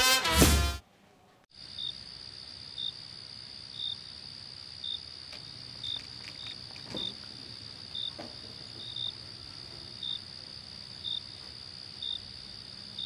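Background music cuts off about a second in. After a brief gap, crickets chirp at about one chirp a second over a steady, high, thin insect buzz, with a few faint clicks.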